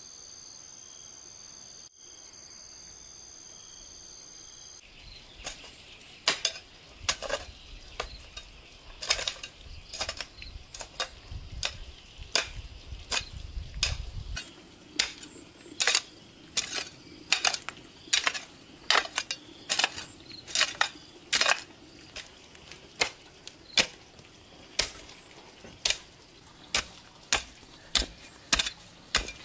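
Kitchen knife chopping on a wooden cutting board in slow, regular strokes, about one every second, starting some five seconds in.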